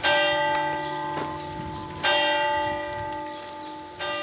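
A single church bell tolling slowly, struck three times about two seconds apart, each stroke ringing on and fading before the next.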